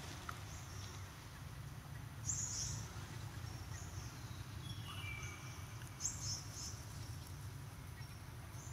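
Forest ambience: short high chirps repeating every few seconds, with a short falling whistled note about five seconds in, over a steady low rumble.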